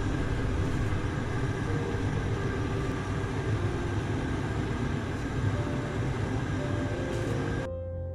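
Water boiling in a stainless-steel saucepan on a gas burner, a steady rumbling bubble as tapioca pearls are cooked; it cuts off near the end.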